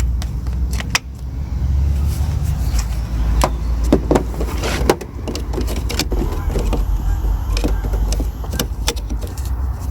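Scattered metallic clicks and clanks of hand work on car batteries and their connections, over a steady low rumble.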